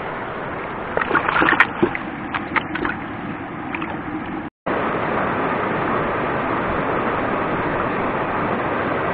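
Stream water with sharp splashes and sloshing in the first half, then, after a brief dropout, the steady rush of whitewater rapids over boulders.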